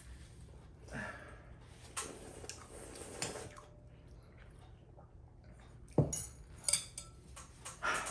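Eating noodle soup: slurping and utensils clinking against a bowl, with a few sharp knocks between about six and eight seconds in, the first the loudest.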